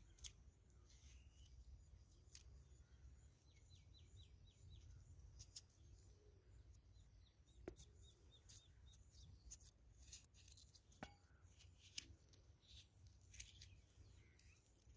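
Faint, scattered clicks and taps of a knife cutting papaya, over a low steady hum. About four seconds in there is a short run of quick high ticks.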